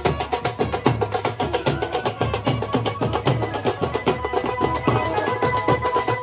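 Music with fast, steady drumming.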